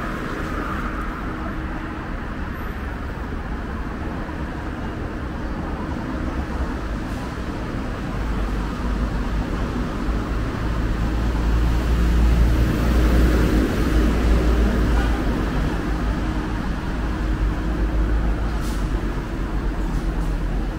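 Street traffic noise: a steady rumble of passing road vehicles that swells as a louder vehicle goes by about halfway through, then eases off.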